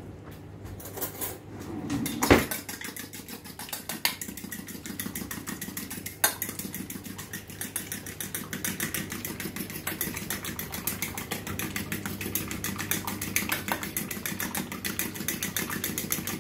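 A fork beating eggs in a stainless steel bowl: rapid, steady clinking of the fork against the metal. In the first couple of seconds a cutlery drawer rattles and gives a sharp knock.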